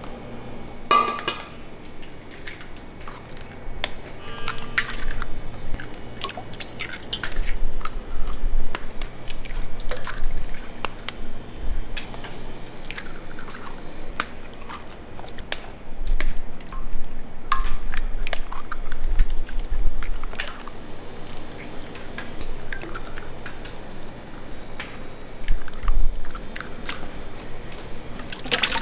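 Kitchen clatter: irregular clinks and knocks of utensils and dishes, over a low steady hum that fades out partway through.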